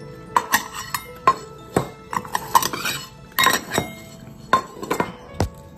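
Stainless steel cat food bowls clinking and knocking on the floor as cats eat, an irregular series of sharp clinks.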